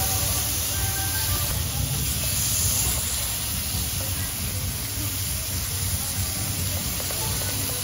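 Beef sizzling on a hot grill plate: a steady hiss, with a low hum beneath it.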